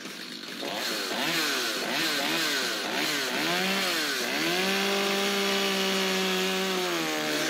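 Two-stroke gasoline chainsaw revving up and down several times, then held at a steady high speed for about three seconds as it cuts into a water-filled wooden barrel. The engine drops back just before the end.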